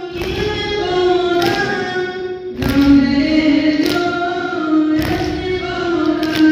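Afghan nawha, a Shia mourning lament, sung by voices in a slow chant with a chorus and no melodic instruments. A heavy thump keeps the beat about every second and a quarter.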